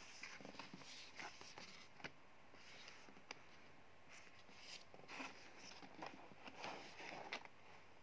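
Faint handling sounds of a cardboard box turned over in the hands: soft scraping and rubbing of fingers on the card, with a few small sharp taps.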